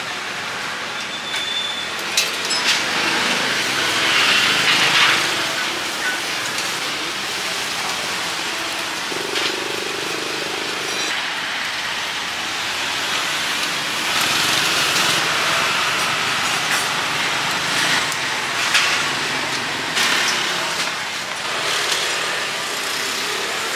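Steady street traffic noise, with vehicles passing and swelling past, and a few short clicks and knocks.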